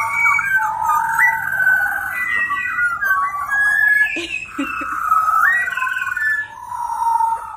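A group of pied butcherbirds singing together: clear, fluting whistled phrases that glide up and down in pitch, several birds overlapping throughout.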